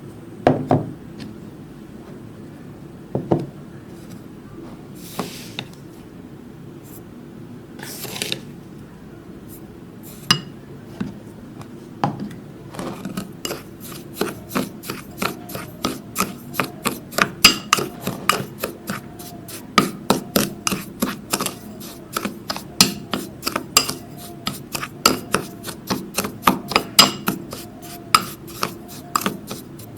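A spoon or stirrer mixing the activator in a glass or ceramic container. It clinks against the side in a fast, even rhythm of about two to three strikes a second from about thirteen seconds in. Before that there are a few separate knocks and two short rustling hisses.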